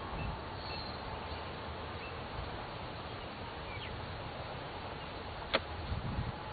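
Honeybees buzzing steadily around an open hive during a frame inspection. One sharp click near the end, a little after five seconds in.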